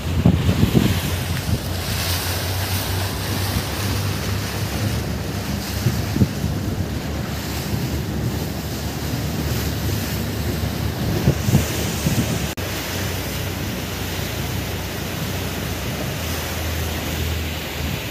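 Fishing boat under way: a steady low engine drone beneath the rush of water along the hull and wind buffeting the microphone.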